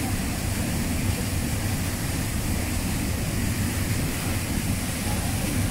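Steady rush of a river cascade, an even noise with a heavy low rumble.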